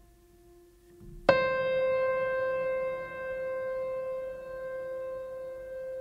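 Soft instrumental background music: a single sustained note struck about a second in and left ringing, over a quieter held tone.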